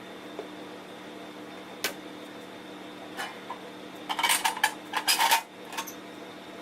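Metal tools and planer parts clinking and rattling as they are handled during reassembly. There is one sharp click about two seconds in, then a quick cluster of bright metallic clinks a little after four seconds that lasts about a second, all over a faint steady hum.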